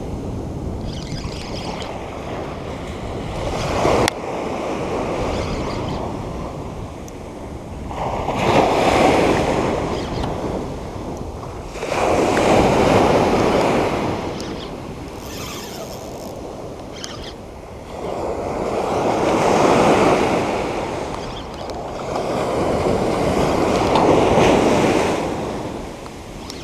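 Small ocean waves breaking on a sand beach and washing up the shore, a steady rushing surf that swells louder with each breaker, about four times.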